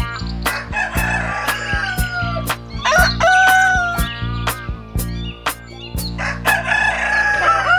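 A rooster crowing several times, long held calls that drop in pitch at the end, over music with a steady beat of about two clicks a second.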